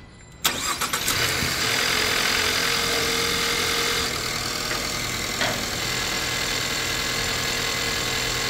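2020 Lincoln Corsair's engine starting up right after an oil change, catching about half a second in. It runs at a raised fast idle for a few seconds, then settles to a steady, slightly quieter idle.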